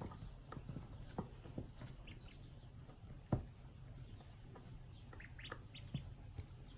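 Four-day-old ducklings peeping softly in scattered short calls, with a quick run of rising peeps near the end. A single sharp thump about halfway through is the loudest sound, over a steady low hum.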